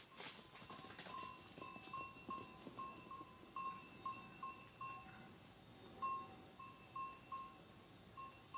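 Small livestock bells, such as goat bells, clinking irregularly about twice a second over a faint background hush.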